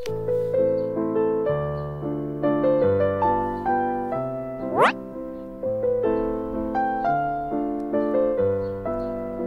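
Piano music, a steady run of notes each ringing and fading, with one short rising glide about five seconds in.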